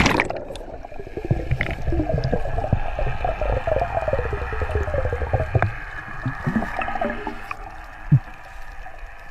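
Underwater sound of air bubbles gurgling and popping around a diver just after jumping into the sea, dense for about six seconds and then thinning out. A single sharp knock comes about eight seconds in.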